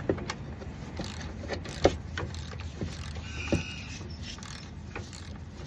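Hand ratchet clicking irregularly as it turns the bolt of a seal puller, drawing the old shifter-linkage seal out of a TH350 transmission case. There is a brief squeak about three and a half seconds in.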